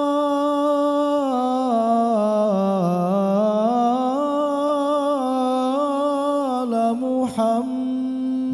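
A young man's voice singing an Arabic sholawat solo: one long melismatic phrase on a held syllable of "jamāl", the pitch dipping about two to three seconds in and climbing back, with a short breath near the end.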